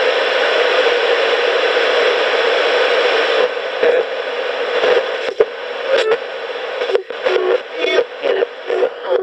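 Coopbox 26 ghost box radio's small speaker hissing with FM static. About three and a half seconds in, the sweep starts scanning the FM band, chopping the static into short bursts with sharp clicks and brief pitched snippets of broadcast sound.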